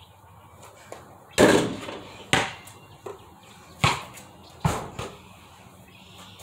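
Four hard thuds of a basketball being bounced and shot at a portable hoop, the first and loudest about a second and a half in with a short ringing after it.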